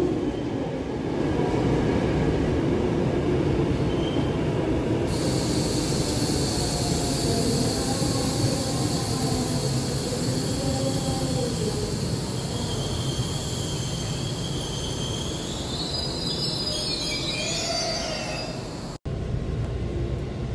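Electric commuter train running past a station platform: a dense rumble of wheels on rail, joined about five seconds in by a high hiss and squeal with shifting whine tones. Near the end it cuts sharply to the steadier rumble inside a moving carriage.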